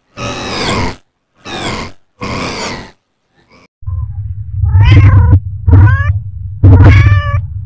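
A cat meowing: three short meows, each falling in pitch. Then, about four seconds in, four louder, longer meows over a loud low rumble.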